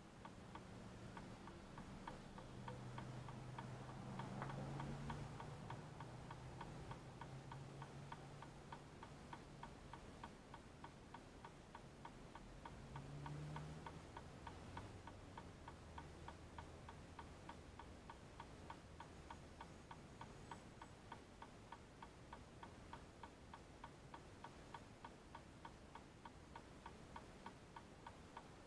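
Faint, steady mechanical ticking, a few evenly spaced ticks a second, with a low hum of passing traffic in the first half that swells briefly about 13 seconds in.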